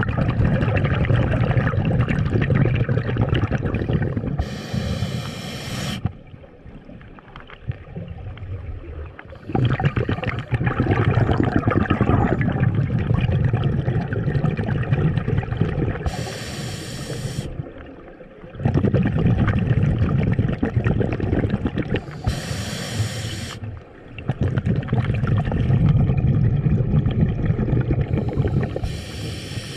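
Scuba diver breathing through a regulator underwater: a short high hiss on each inhale, about four times, each followed by a long stretch of bubbling, rumbling exhaled bubbles.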